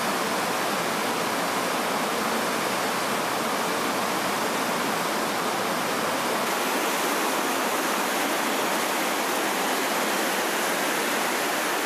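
Steady rushing of water from an underground stream running through a marble cave.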